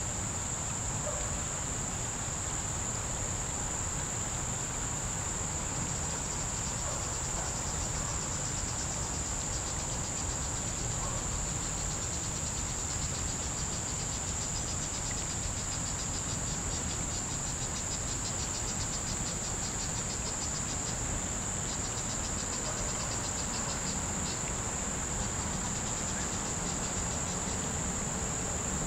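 Summer insect chorus: a continuous high, steady drone, joined from about six seconds in until near the end by a second insect's rapid pulsing trill, over a low steady rumble.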